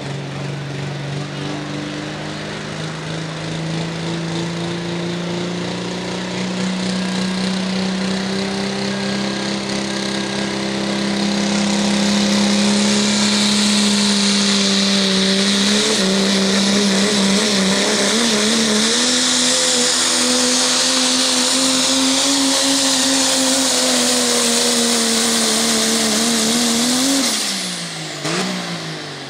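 Turbocharged pro stock diesel pickup engine running under full load while pulling a weight-transfer sled: its pitch climbs for about the first ten seconds, then it gets louder with a high hiss over it and the pitch wavers as the truck pulls. A couple of seconds before the end the engine lets off and the pitch falls away sharply as the pull ends.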